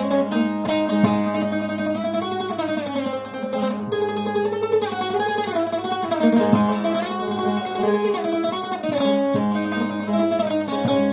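Long-necked bağlama (uzun sap) played solo in a free improvisation: a plucked melody with notes that slide in pitch, over a steady low drone from the open strings.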